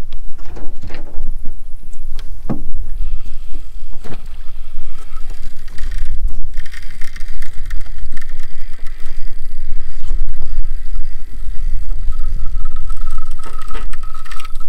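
Wind buffeting the microphone as a steady low rumble, with a few faint knocks early on and a thin steady whine coming in near the end.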